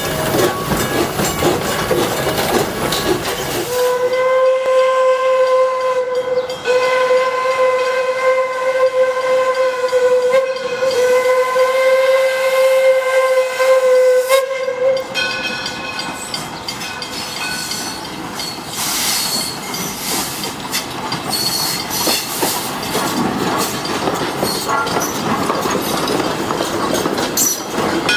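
Steam whistle of Detroit & Lima Northern No. 7, an 1897 Baldwin steam locomotive, blowing a steady note in three long blasts with only short breaks between them, starting about four seconds in and lasting about eleven seconds. Before and after the whistle there is the noise of the moving train, with steam hiss.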